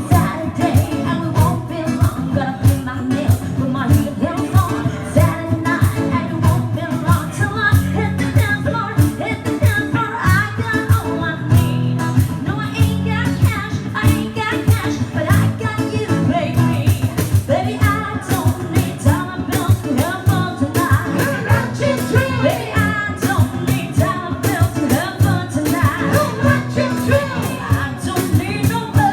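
Live band playing a song with a singer, drums keeping a steady beat.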